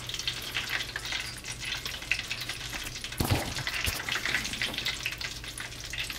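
Fine, steady crackling and sizzling of two freshly deep-fried, battered turkey legs resting on a wire rack, hot oil still popping in the crust. A dull knock sounds a little past halfway.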